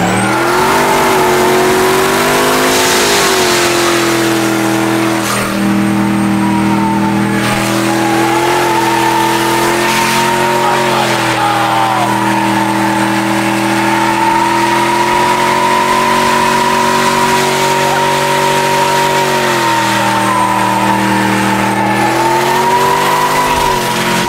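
Turbocharged dually race truck's engine held at high revs for a long stretch while the tyres squeal, a burnout. The revs climb at the start, stay nearly steady, dip briefly about 20 seconds in and climb again.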